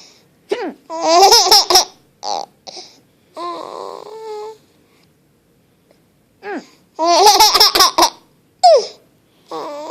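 A baby laughing in bursts of giggles with short pauses between, in reaction to his mother's hiccups. The loudest fits of laughter come about a second in and again about seven seconds in.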